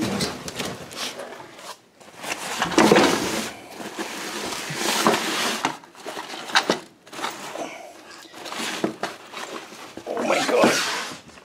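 Rummaging through a box of stored belongings: cardboard scraping and objects being shifted and knocked, in several noisy bursts with a few sharp clicks between them.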